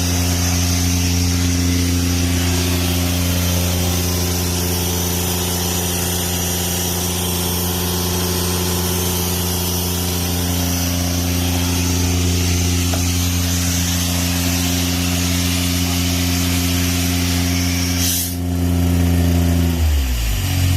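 Airman PDS90 compressor's three-cylinder diesel engine running steadily under load, with a hiss of compressed air being blown off. Near the end the engine speed drops.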